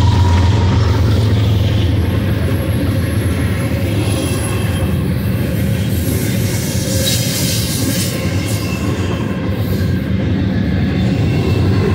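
A BNSF double-stack intermodal freight train passes close by. The low diesel rumble of the last lead locomotive, a GE ES44DC, eases within the first couple of seconds, and the container well cars then roll by with steady wheel-on-rail noise. A brief rush of high-pitched wheel noise comes about seven seconds in.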